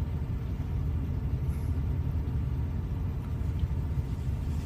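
Steady low background rumble picked up through a phone's microphone.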